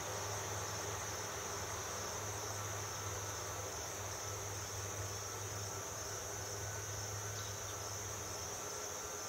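A steady chorus of insects, one unbroken high-pitched drone, over a steady low hum.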